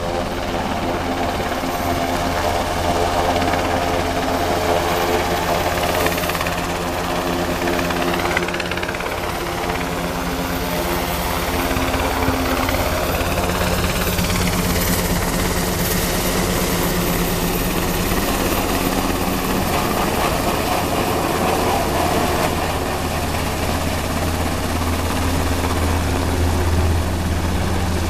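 Coastguard search-and-rescue helicopter hovering low overhead, its rotors and turbines running in a steady, loud drone with no break.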